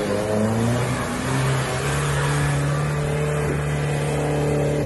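UAZ off-road vehicle's engine pulling hard under load, its revs rising about a second and a half in and then held steady and high.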